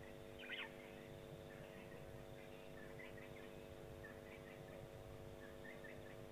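Faint bird chirps: a short call about half a second in, then a few brief scattered calls, over a steady low hum.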